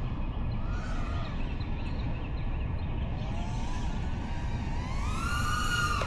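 5-inch FPV quadcopter's motors whining, the pitch swinging up and down with the throttle and climbing to a higher held whine in the last couple of seconds, over a steady low rumble.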